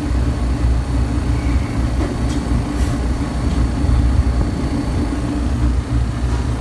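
True TS-72F three-door reach-in freezer running: a steady low hum of its refrigeration machinery and fans, with a thin steady high tone over it.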